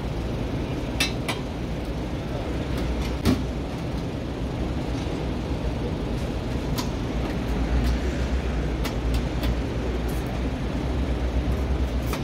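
Chopped chicken cooking on a food cart's flat-top steel griddle, with a dozen or so sharp clicks and scrapes of a metal spatula against the steel, over a steady low rumble.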